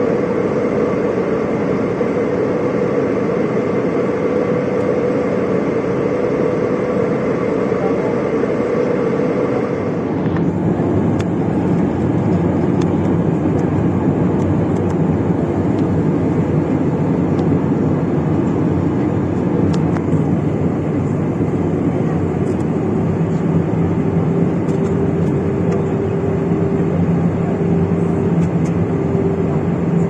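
Jet airliner cabin noise from a seat over the wing: a steady rush of engines and airflow with a constant hum, recorded at cruise altitude. About ten seconds in it changes abruptly to a different, lower steady drone with new hum tones, recorded lower down in the descent.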